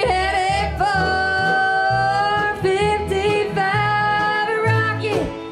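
Live bluegrass band playing, with a voice singing a long held, sliding melody line over acoustic guitar and a steady low bass line.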